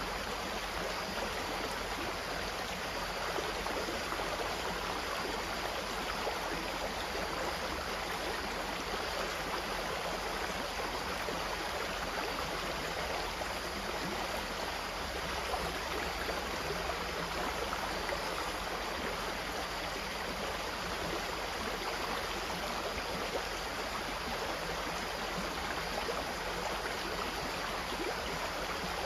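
Water flowing steadily in a stream, an even babbling rush with no let-up.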